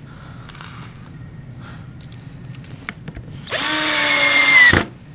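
Cordless drill driving a screw into a wooden plank: one loud run of motor whine lasting just over a second, starting about three and a half seconds in, rising briefly to speed, holding steady, then cutting off sharply. Before it there are only faint handling clicks.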